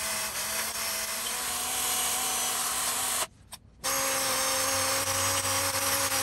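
Cordless drill spinning a sanding bit against a copper pipe stub on a refrigerator compressor, cleaning the copper bright before it is soldered. The drill runs with a steady whine, stops for about half a second a little past three seconds in, then starts again.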